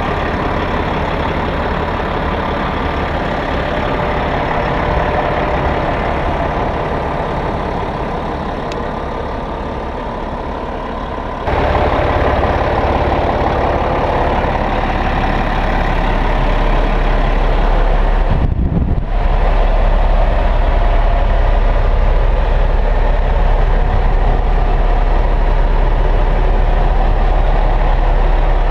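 Caterpillar D8T crawler dozer's diesel engine idling steadily. About eleven seconds in it steps up louder with a deeper rumble, and it briefly drops out once a little later.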